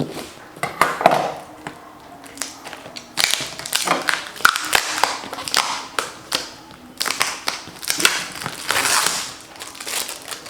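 Packaging being torn and crinkled open by hand, irregular rustling of wrapping with sharp taps and knocks from handling the package.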